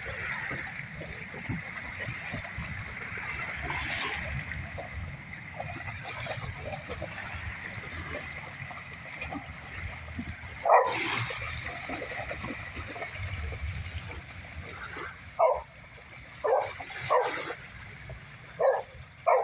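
Boxer dogs barking in play in shallow water: one loud bark about halfway through, then a run of about five short barks near the end, over water splashing and lapping around their legs.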